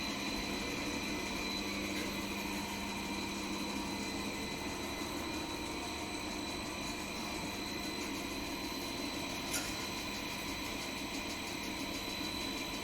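Plastic bi-oriented net production machinery running steadily: a constant machine hum with a steady high-pitched whine, and one faint click about two-thirds of the way through.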